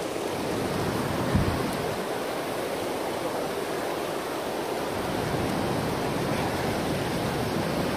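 Creek water rushing steadily through a rocky channel and over small rapids between granite boulders. A single dull thump about a second and a half in.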